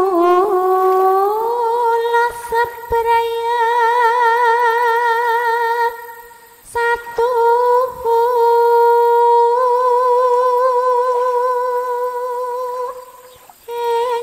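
A single voice sings a Javanese kidung (devotional chant) in long, drawn-out held notes with a wavering vibrato. The pitch glides up about a second in, and the line breaks twice for short pauses.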